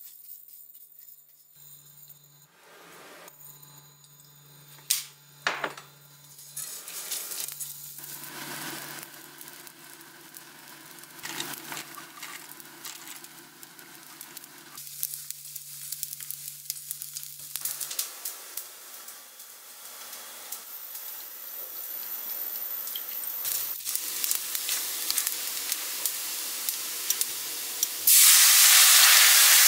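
Dried small anchovies being dry-roasted in a hot pan and stirred with a spatula: scraping and rattling, with a faint sizzle that slowly builds. Near the end, soy sauce poured into the hot pan sets off a sudden loud sizzle.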